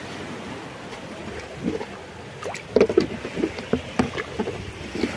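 Sea surf and wind noise on a rocky shore, with a run of short, irregular clicks and knocks from about a second and a half in, loudest near the middle.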